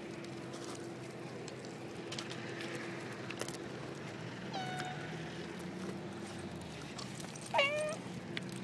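Two short, high animal cries with a mewing quality, about three seconds apart. The second is louder and drops in pitch.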